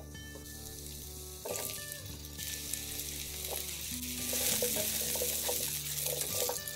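Sliced mushrooms sizzling in hot oil in a nonstick pan. The sizzle grows louder a few seconds in as more mushrooms go in, and a few light clicks come near the end as metal tongs stir them.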